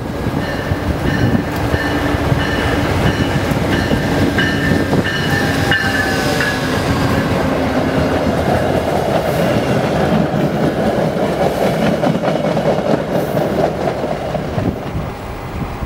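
VIA Rail passenger train rolling in and slowing to a stop, its wheels running over the rails. High squealing tones from the wheels and brakes sound for the first six seconds or so and fall away, leaving a steady rumble.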